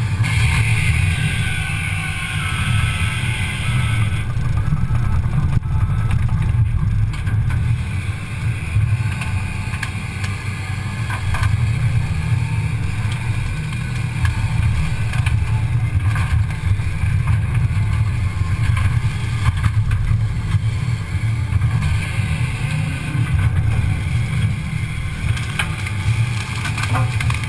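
Cat 320 excavator with a Slashbuster brush-cutting head running, picked up by a camera strapped to the front of the machine: a steady, heavy low rumble with scattered knocks and rattles.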